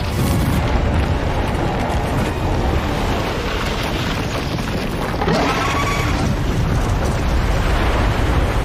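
Film sound effects of an ice dragon's blue-fire blast and a wall of ice collapsing: a dense, heavy rumble throughout, with a rising cry about five seconds in.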